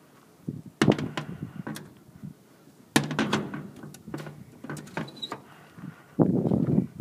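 Slow footsteps crunching on frozen snow and mud, three steps a couple of seconds apart, the last one the longest and loudest.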